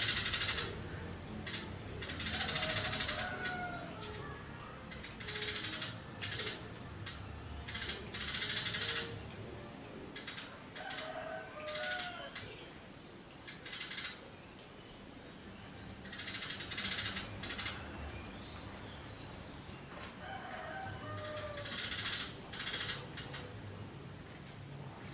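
Eurasian tree sparrow giving a dozen or so short bursts of rapid, rattling chatter, with softer chirps in the gaps between them.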